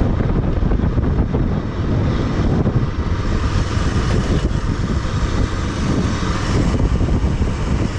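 Hero XPulse 200 motorcycle's single-cylinder engine running steadily while riding at about 30 km/h, heard from a bike-mounted camera along with wind and road noise.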